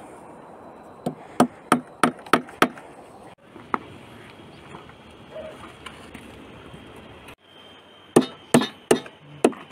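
Hammer blows on a wooden frame, about three a second: a run of about six strikes, a single blow, then another run near the end.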